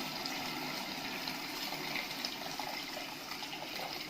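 Hot water poured from a kettle into a pot of browned meat, a steady pouring splash of water.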